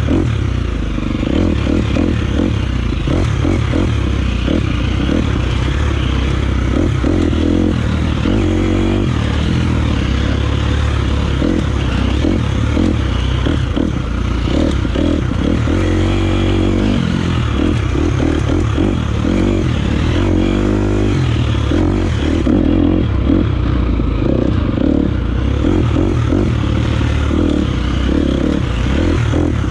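Single-cylinder four-stroke 250cc dirt bike engine running hard on a trail ride, its revs rising and falling continuously, with clattering and rattling from the bike over rough ground.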